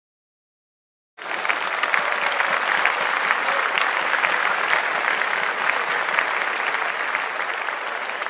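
About a second of silence, then crowd applause starts suddenly and keeps going steadily.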